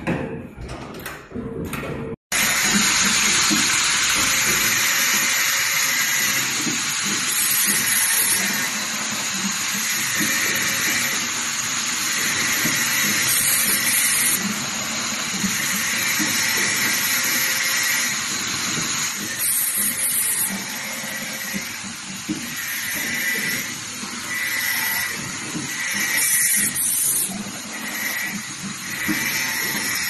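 Yuanhan YH-68210C pneumatic cable stripping and crimping machine at work: a loud, steady hiss of compressed air, with a shorter hiss repeating every couple of seconds and a sharper puff of air about every six seconds. In the first two seconds, quick clicks and knocks of the mechanism.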